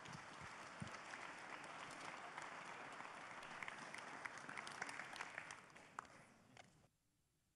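Audience applauding, a dense patter of clapping that thins slightly and then cuts off abruptly about seven seconds in.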